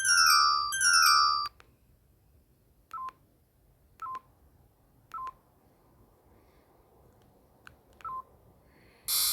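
Huawei T261 phone's built-in tones: a quick electronic melody of bright notes for about a second and a half, then four short single beeps at uneven gaps, and a new, brighter tone starting near the end.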